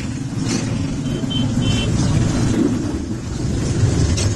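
Steady low rumble of motor vehicles passing by on the road.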